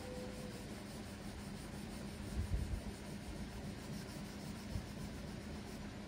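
Faint scratching and rubbing of pencil shading strokes on a drawing-book page, over a steady low hum.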